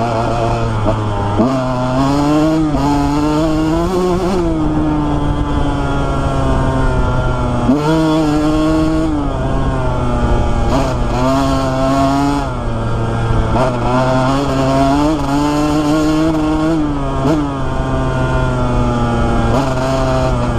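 2001 Honda CR125R's two-stroke single-cylinder engine being ridden hard, its pitch climbing and then dropping sharply about six times as the rider works the throttle and shifts gears.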